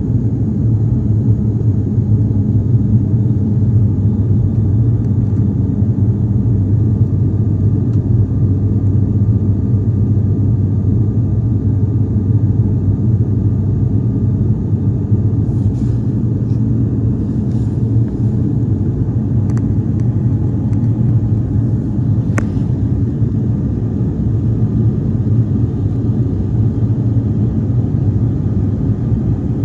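Aircraft engines droning steadily in flight, heard from inside the passenger cabin.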